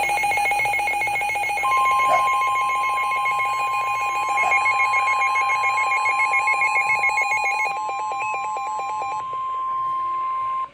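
Emergency Alert System warning tones: a rapid pulsing beeping alarm tone, joined about two seconds in by a steady high tone. The beeping stops about nine seconds in, leaving the steady tone alone.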